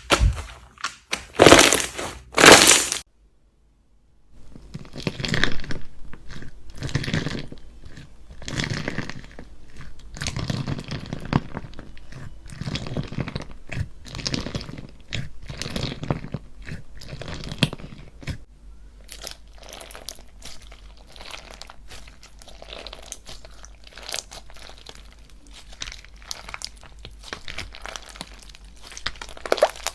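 Hands squishing, pressing and stretching slime, giving a run of repeated crunching and crinkling sounds. There are two louder crunches near the start, then a brief silence before a new clip begins, with the strokes softer in the second half.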